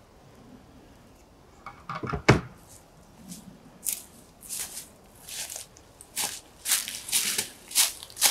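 Footsteps crunching through dry fallen leaves, about two steps a second, getting louder towards the end. A single knock about two seconds in.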